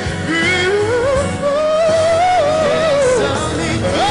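Live pop ballad played by a band, its lead melody sliding up into one long note held with vibrato for nearly three seconds, with a new note entering near the end.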